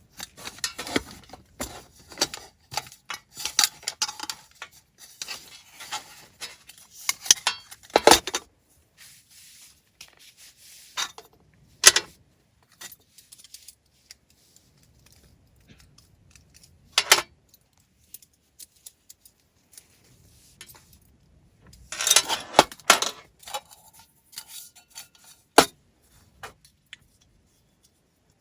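Camping gear being handled: scattered clicks, light clinks and rustling in bursts, with sharp single knocks in between and quiet gaps.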